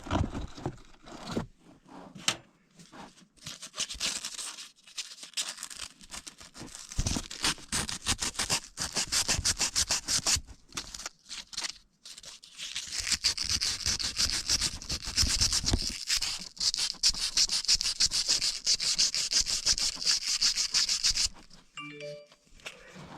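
A furnace flame sensor rod being scrubbed clean of its deposits with rapid back-and-forth scraping strokes. The strokes come in spells with brief pauses, grow harsher in the later stretch, then stop shortly before the end.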